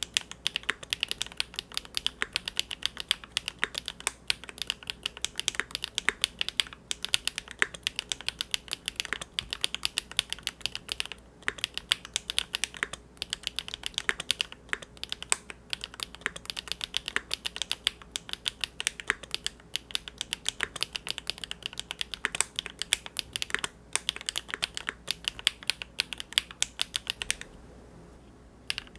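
Continuous fast typing on a Big Whale custom mechanical keyboard with GEON Raw Zero switches on a polycarbonate plate, a rapid stream of key clacks that stops briefly near the end before resuming.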